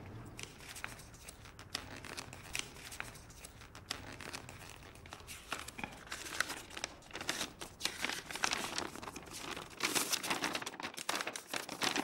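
Paper crinkling and rustling as a folded paper ballot is handled, in many short crackles that grow busier near the end.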